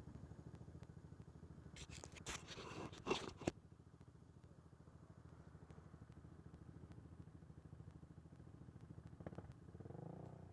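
ATV engine running steadily at low speed, its firing pulse even. A loud burst of scraping noise comes about two seconds in and lasts a second and a half.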